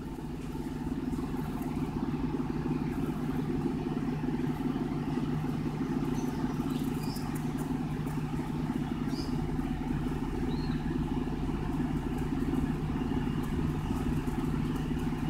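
A steady low mechanical hum, with no pencil strokes standing out above it.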